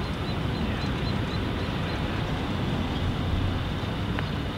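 Steady outdoor background noise with no clear source, and one faint tap near the end: a putter striking a mini golf ball.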